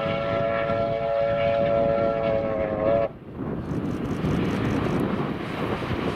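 Steam locomotive R707's whistle sounding a long blast of several tones together, which cuts off sharply about three seconds in. After that comes the steady noise of the working locomotive and its train running past.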